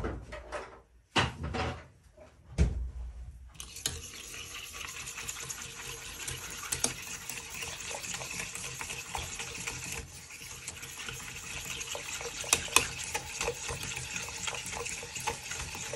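A flat wire whisk beating sauce in a stainless steel saucepan: steady rapid splashing and scraping, peppered with clicks of the wire against the pan, starting about three and a half seconds in after a few knocks.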